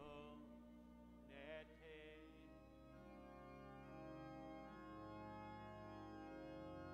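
Organ playing slow, held chords, faint. A brief voice sounds about a second and a half in.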